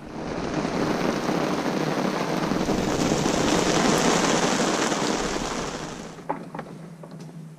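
Heavy squall rain pouring down: a steady, loud hiss that starts abruptly and fades out about six seconds in, followed by a few light knocks.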